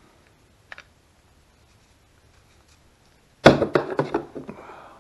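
A faint click, then about three and a half seconds in a sudden clatter of sharp knocks lasting about a second, from a screwdriver and a small Mikuni carburetor being handled during disassembly.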